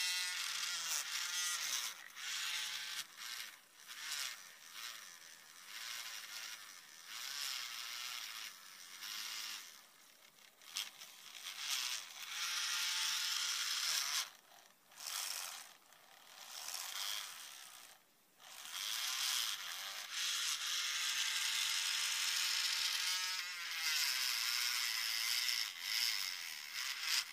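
Small hand-held electric motor tool spinning a model locomotive wheel in a cleaning jig, whirring in several spurts that wind up and down in pitch, with a scraping hiss as the wheel tread is polished with metal polish.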